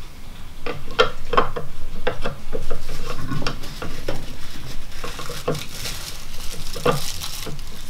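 Statue packaging being handled: a run of rustling, scraping and clicks as packing pieces are pulled and pushed about, with the rustling densest in the second half.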